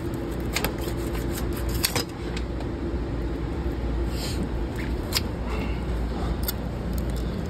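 Large knife cutting and scraping along a triggerfish's tough, leathery skin: scattered sharp clicks and scrapes over a steady low hum.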